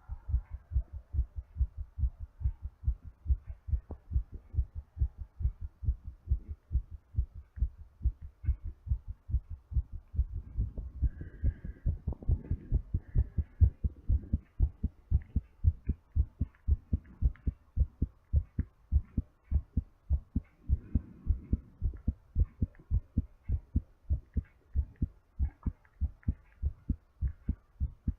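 A person's heartbeat recorded close-up during recovery from exercise: a steady, regular rhythm of dull low thumps.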